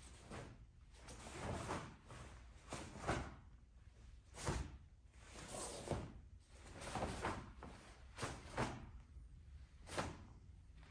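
Faint swishes and thuds of a taekwondo form performed barefoot: the uniform snapping and feet landing with each block, strike and step, about a dozen separate movements, some in quick pairs.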